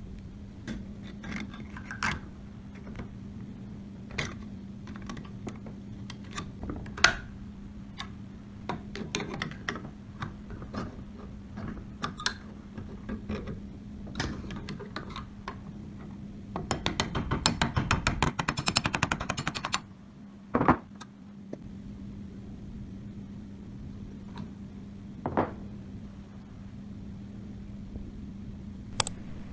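Scattered clicks and knocks of metal gun parts being handled and worked on, with a rapid rattling run in the middle lasting about three seconds and a single sharper knock just after it, over a steady low hum.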